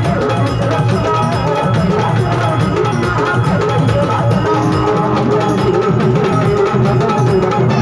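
Marathi Tamasha folk dance music: a fast, dense drum rhythm under a steady melody, played loud.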